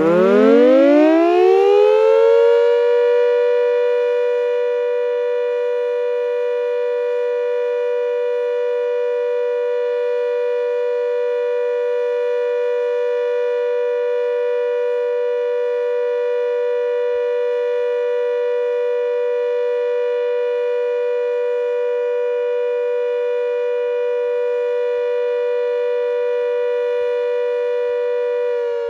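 Klaxon GP8 siren sounding for its routine test. It winds up in pitch over about three seconds, then holds a steady two-note wail and begins to wind down near the end.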